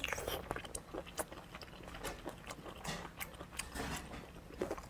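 A person chewing a mouthful of sea snail meat close to a clip-on microphone: an irregular run of short clicks and smacks, several a second.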